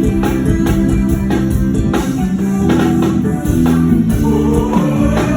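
A band playing a song with a steady drum beat, bass notes and plucked strings; a gliding, rising note comes in about four seconds in.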